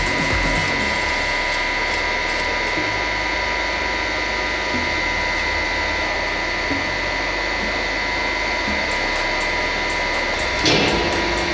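Hydraulic press running with a steady pump hum while its ram lowers, with a brief surge about ten seconds in after which a lower steady tone joins.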